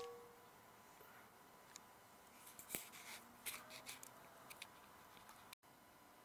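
Near silence: the ring of a rifle shot dies away at the very start, followed by a few faint, scattered clicks and rustles.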